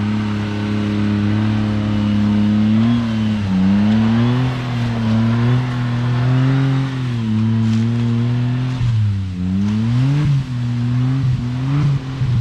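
Suzuki Jimny's engine revving hard under load as it climbs a steep dirt slope. The revs sag and pick up again about three and a half and nine and a half seconds in.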